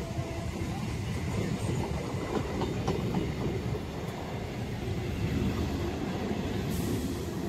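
Eastern Railway electric local train (EMU) passing close by, its wheels rumbling steadily on the rails, with a few sharp clacks over the rail joints about two to three seconds in.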